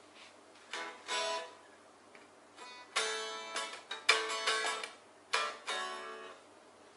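Guitar played through the Roland GO:MIXER PRO: a few short plucked chords and single notes, a pair about a second in, then a cluster of strums between about three and six seconds in, each ringing briefly and dying away.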